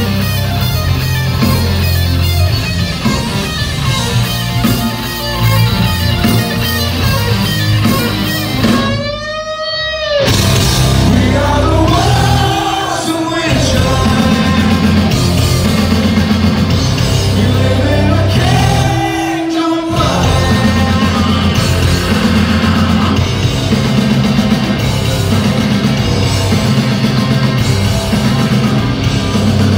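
A live rock band plays loud, with distorted electric guitar, drums and a singing voice. The bass and drums drop out briefly twice, about nine and twenty seconds in, before the full band comes back in.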